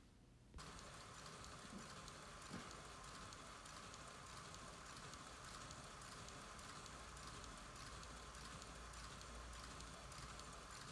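Faint, steady whir and hiss of a Lionel BR-50 O-scale model steam locomotive running in place on rollers, its drive wheels and rods turning. The sound comes in after a brief gap about half a second in.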